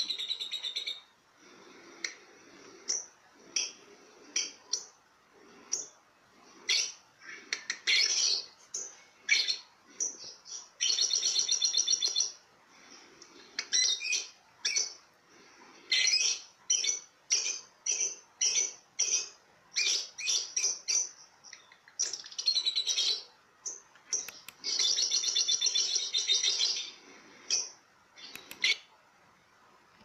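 Budgerigar chattering: quick high chirps and short calls, with several longer runs of rapid warbling. It stops just before the end.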